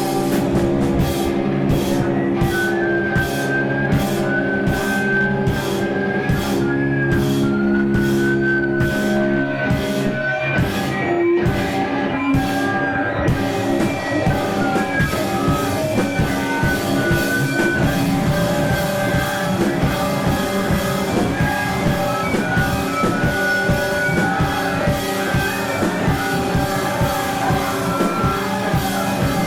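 Live rock band playing: electric guitar and bass chords over a drum kit. For the first half the drums mark a steady beat of about two hits a second; about halfway through it opens up into a fuller, denser passage with cymbals ringing continuously.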